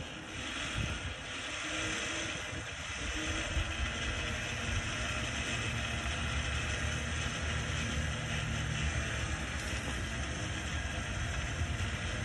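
Badland 12,000 lb electric winch on a Ford pickup running steadily under load, winding in cable to pull the truck and a loaded firewood trailer. The truck's engine runs underneath it.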